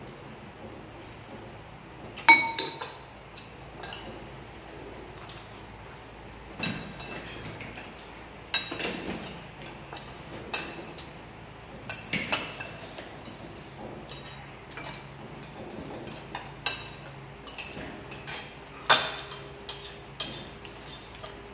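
Metal spoons and forks clinking and scraping against ceramic plates and bowls during a meal, in scattered sharp clinks every second or two. The loudest clinks come about two seconds in and near the end.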